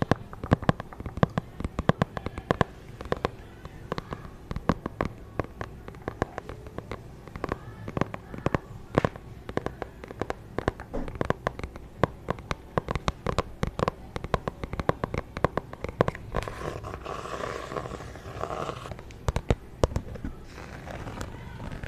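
Close-miked ASMR object sounds: a rapid, irregular run of sharp taps and clicks. About sixteen seconds in, this gives way to a denser, continuous scratchy texture.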